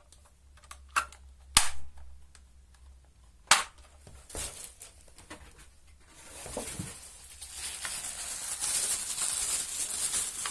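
Sharp plastic clicks and knocks, three loud ones in the first few seconds, as the vacuum cleaner's floor brush and other plastic parts are handled. About six seconds in, a rustling of plastic packaging starts and grows.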